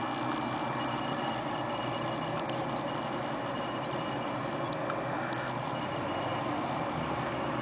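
Steady engine rumble with a hiss over it and a few faint ticks.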